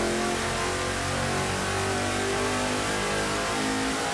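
GM LS3 6.2-litre V8 on an engine dyno, running a wide-open-throttle pull on E85 fuel and revving up through about 5,000 to 6,400 rpm.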